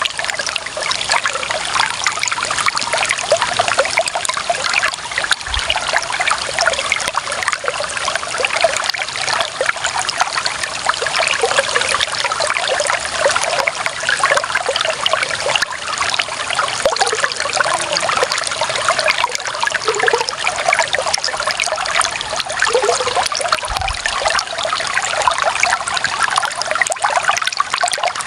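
Clear water running and trickling over stones in a small stream, a steady bubbling babble.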